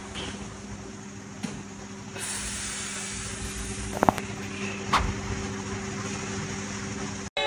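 Two short, sharp cracks about a second apart, joints popping during a chiropractic spinal adjustment, over a steady low hum.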